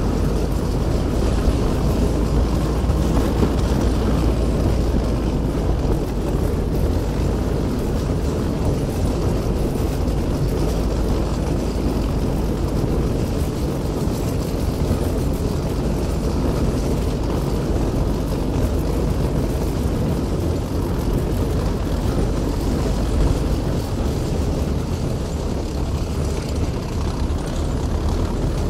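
NSU Kettenkrad half-track driving steadily over a dirt track, heard from on board: its Opel four-cylinder engine running and its tracks running, under a heavy low rumble.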